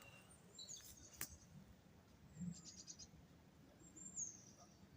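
Faint, scattered bird chirps: a few short high calls about a second in, around two and a half seconds and near four seconds, with one faint click a little over a second in.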